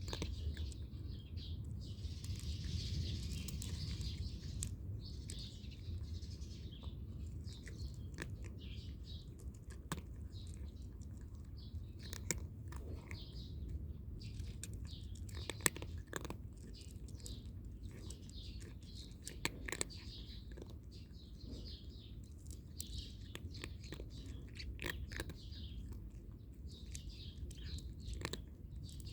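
A cat crunching dry kibble, with irregular sharp crunches, while small birds chirp in the background.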